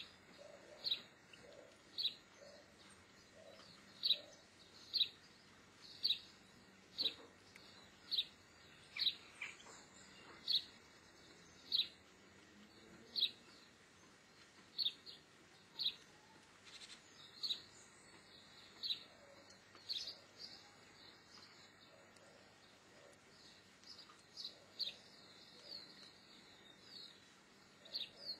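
A bird chirping faintly: one short, high, slightly falling note repeated about once a second, over a low background hiss.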